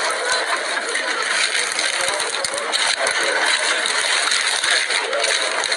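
Dense, steady rattling noise with scattered short clicks, as metal tongs handle and pull apart a whole rotisserie chicken in a foam takeaway box.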